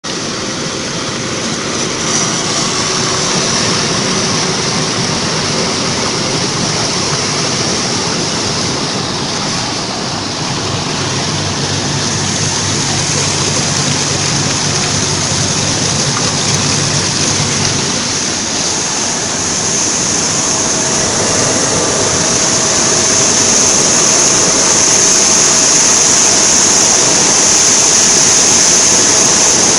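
Vegetable washing machine running: a steady rush of moving water over a machine hum, growing a little louder in the last few seconds.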